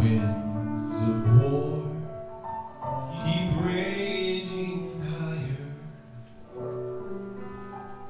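A man singing a slow song into a microphone over instrumental accompaniment, in phrases with held notes; the accompaniment carries on between the sung lines.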